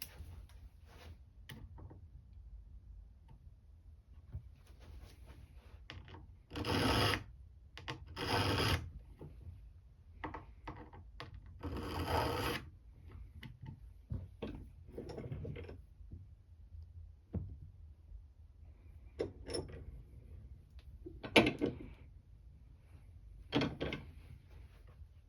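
Hand file rasping across the steel blade of a Craftsman screwdriver, narrowing its sides. There are three long, louder strokes between about 6 and 13 seconds in and lighter strokes around them, with a few short, sharp scrapes or clicks near the end.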